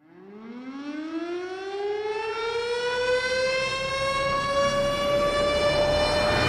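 A siren-like wail winding up from silence: one slow rising tone with many overtones that grows louder and levels off near the end.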